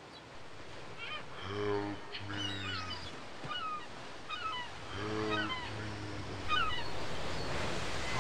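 Ambient soundtrack of birds chirping, with short falling calls repeating throughout, over two pairs of low honks, one pair about a second and a half in and another about five seconds in. Surf noise swells near the end.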